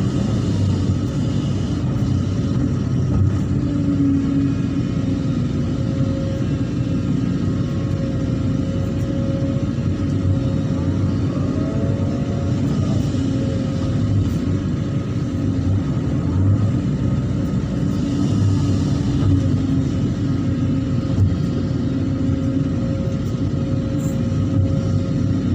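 Excavator's diesel engine running steadily with a low rumble and a steady tone above it.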